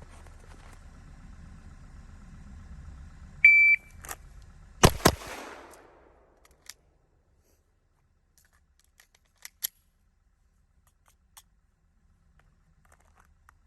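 A shot timer gives one short, high start beep. About a second and a half later a Smith & Wesson M&P 2.0 pistol is drawn from the holster and fires two quick shots, about a quarter second apart, for a 1.62-second draw.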